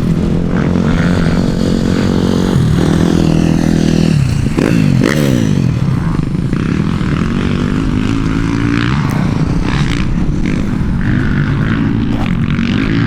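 Several dirt bike engines revving on a motocross track during warm-up laps, their pitch repeatedly rising and falling as the riders work the throttle and shift gears.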